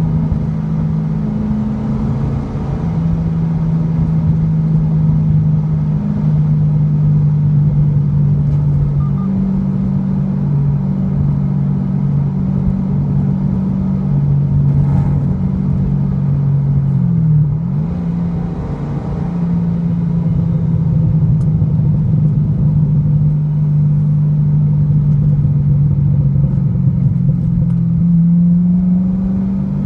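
A 2008 C6 Corvette's 6.2-litre LS3 V8 running through an SLP aftermarket exhaust, heard from inside the cabin while driving, a steady low drone. About two-thirds of the way through its pitch dips briefly and comes back, and near the end it rises.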